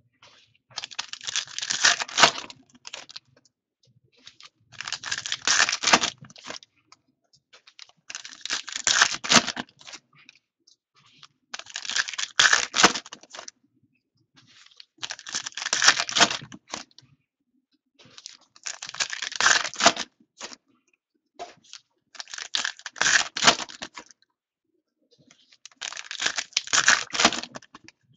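Foil football-card packs being torn open and the cards handled, with eight bursts of tearing and rustling about every three and a half seconds and short pauses between them.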